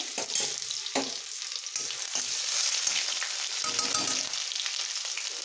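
Ginger-garlic paste sizzling in hot oil in a kadhai, a steady hiss of frying, with a few knocks of the stirring spoon against the pan.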